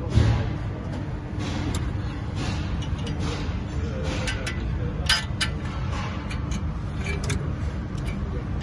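Hand tools working on the turbo and exhaust parts of a Lexus NX200T engine. There is a dull thump at the start, then scattered sharp metallic clicks and clinks over a steady low hum.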